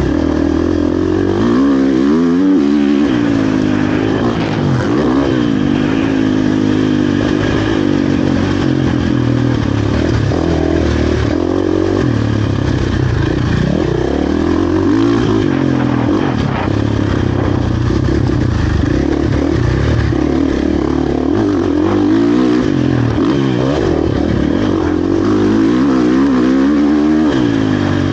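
2023 KTM 450 SX-F motocross bike's single-cylinder four-stroke engine, ridden hard, revving up and down over and over as the throttle is opened and closed, its pitch rising and falling every second or two.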